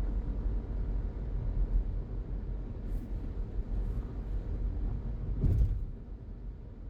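Car driving along a road: a steady low rumble of tyres and engine, with three short knocks about three, four and five and a half seconds in, the last the loudest.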